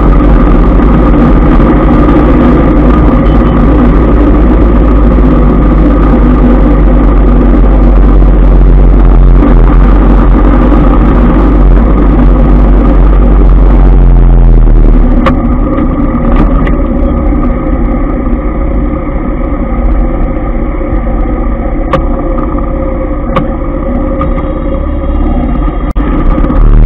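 Riding a motorbike through dense city scooter traffic: a loud, steady rumble of wind on the microphone and engines running. About halfway through it turns a little quieter and duller.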